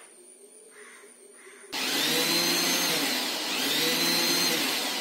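Electric mixer grinder with a small steel jar switched on suddenly about two seconds in and run in two short pulses, its motor whine rising and falling with each pulse, blending a milk-and-oil eggless mayonnaise.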